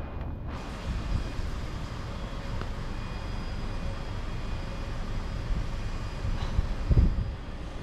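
Wind buffeting the microphone over a steady low outdoor rumble, with a heavier gust about seven seconds in.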